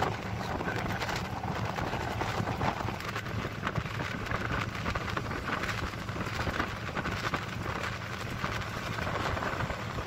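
Intercity bus driving along a highway: a steady engine drone under road and wind noise, heard from a passenger seat by the window.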